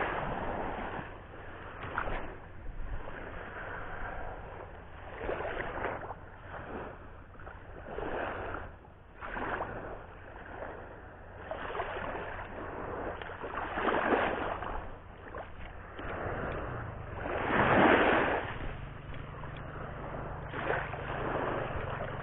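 Sea waves washing onto the shore, swelling and falling back every few seconds, with the biggest surge about three-quarters of the way through. A low steady hum joins near the end.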